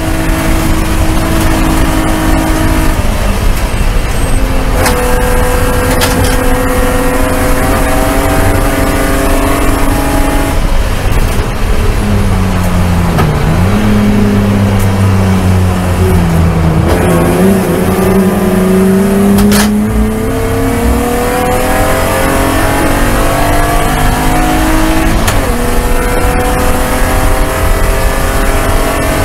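BMW race car's straight-six engine at racing speed, heard from inside the stripped cockpit: the pitch climbs steadily under throttle, drops suddenly at upshifts, and wavers lower around the middle before climbing again.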